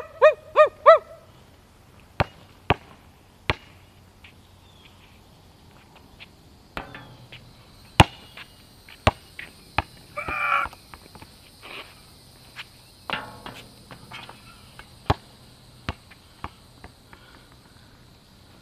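A dog barks four times right at the start. Then a basketball bounces and strikes on the outdoor court in irregular sharp thuds, with a steady high insect drone underneath.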